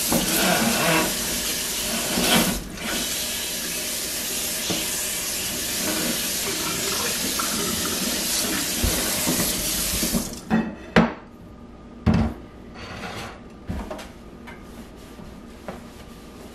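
Kitchen faucet running into the sink while it is rinsed out, shutting off about ten seconds in, followed by a few light knocks and clunks.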